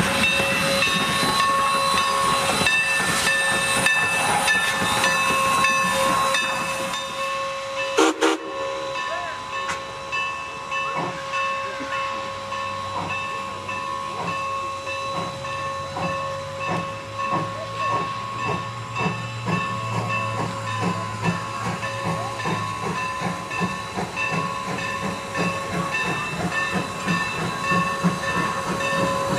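Steam locomotive with a steady hiss of steam for the first several seconds, then, after a brief break, slow exhaust chuffs at about two a second as it works.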